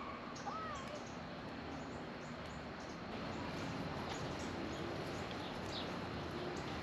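Garden ambience at dusk: small birds chirping faintly, with many short high chirps scattered throughout and one short rising-then-falling call about half a second in.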